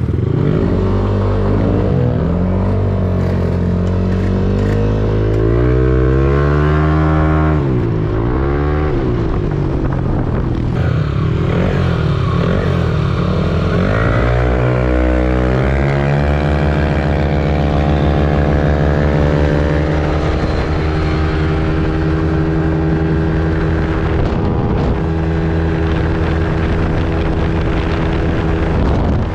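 Yamaha NMAX 155 scooter engine on a test run: revving up and down while standing, then about halfway through accelerating hard with a steep rise in pitch before settling to a steady drone at road speed.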